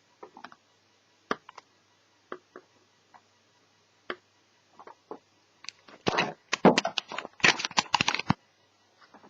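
Small clicks and taps from a netbook's parts being handled during disassembly, scattered at first, then a dense run of clicking and scraping from about six seconds in until just past eight seconds.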